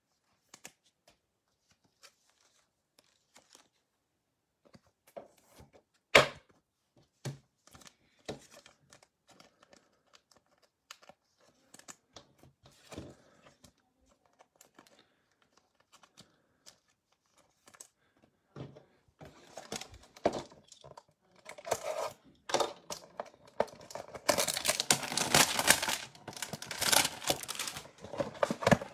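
Trading cards being handled and set down, with scattered soft clicks and taps. From about two-thirds of the way in, a Select basketball hanger box is torn open with rapid crinkling and tearing of its wrapping and cardboard, loudest near the end.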